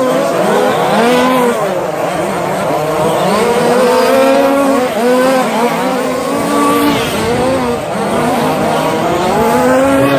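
Several radio-controlled short-course racing trucks running around the track, their motors revving up and down with the throttle so that the overlapping whines keep rising and falling in pitch.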